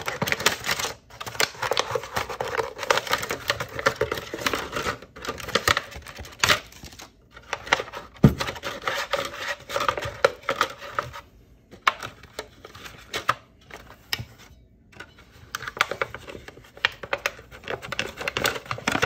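Thin plastic sheeting crinkling and scraping against a transmission clutch drum as hands push a piston and its lip seal down past it. It is a rapid, uneven run of small clicks and rustles with a few short pauses.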